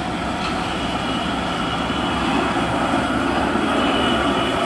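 Steady mechanical drone of factory machinery running, holding several fixed tones and slowly growing louder.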